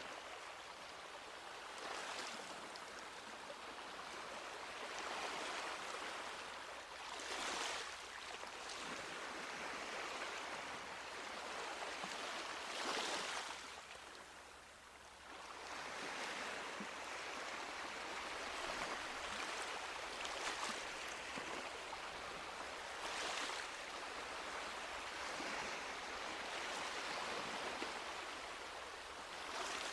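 Sea waves washing onto a beach, a steady wash of surf with a louder wave breaking every few seconds.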